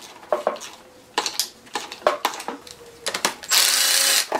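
Hand ratchet clicking in short irregular strokes with metal knocks as it works a rusted exhaust manifold nut loose on a Toyota 3B diesel engine. Near the end, a loud rasping burst lasting just under a second.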